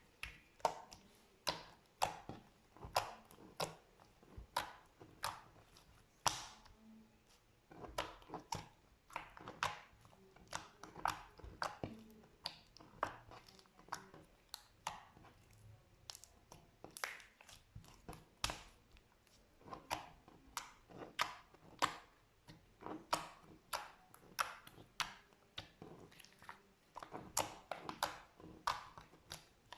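Slime being worked by hand, giving irregular sticky clicks and small pops, one to three a second.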